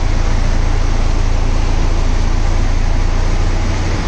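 Backhoe loader's diesel engine running steadily close by, over the rush of fast-flowing floodwater.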